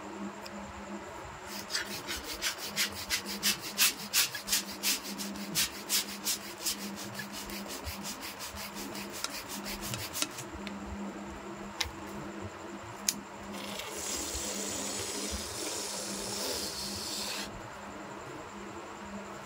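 A rubber balloon being inflated with quick regular strokes, about three a second, for roughly nine seconds, followed by a couple of clicks. Then air hisses steadily out of the balloon's neck for about four seconds as it deflates.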